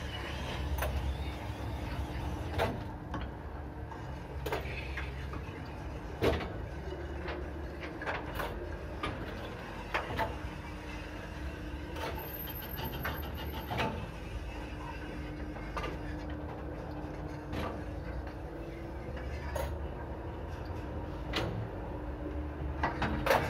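KMZ passenger lift car running in its shaft at 0.71 m/s, heard from the car roof: a steady low rumble with a held drone, and a sharp click about every two seconds. A louder clatter comes right at the end.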